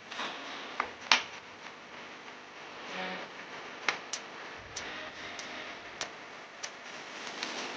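Irregular sharp clicks and taps, about eight of them, over a steady low hiss; the loudest comes a little after one second in.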